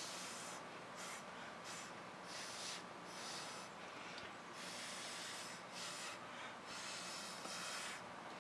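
Irregular breathy puffs of air from a person close to the microphone, a few each second or two with short gaps between.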